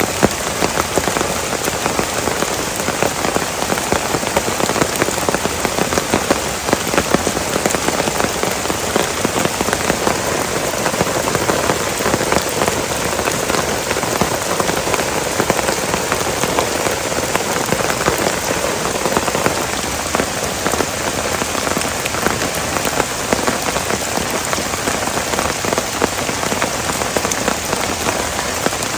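Heavy rain falling steadily, with a dense spray of individual drop hits over an even hiss.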